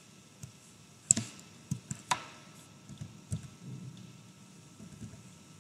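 A few irregular clicks of a computer mouse and keyboard keys, the sharpest about a second in and another about two seconds in.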